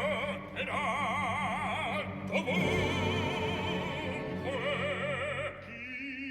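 Operatic singing with a strong vibrato over orchestral accompaniment, in several sung phrases.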